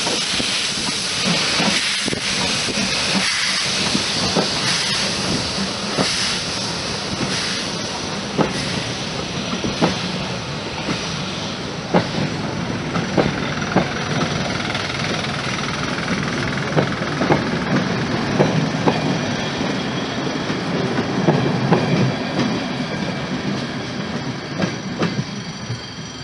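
SNCF 140 C 314 steam locomotive passing close with a loud hiss of steam, followed by its rake of passenger coaches rolling by, the wheels clicking irregularly over the rail joints. The sound drops a little near the end as the last coach moves away.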